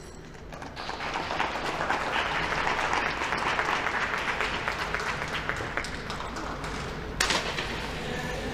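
Audience applauding, starting about a second in and going on steadily, with a single sharp knock near the end.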